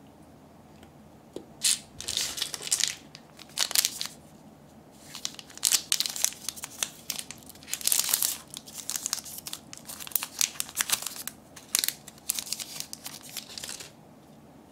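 Thin plastic candy wrapper crinkling and tearing as it is peeled open by hand, in irregular bursts with short pauses, starting about two seconds in and stopping shortly before the end.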